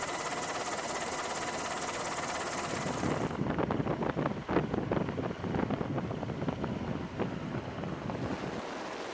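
Steady engine drone with a faint high whine, then, about three seconds in, the rapid chopping of a hovering Navy Seahawk helicopter's rotor mixed with wind buffeting, easing off near the end.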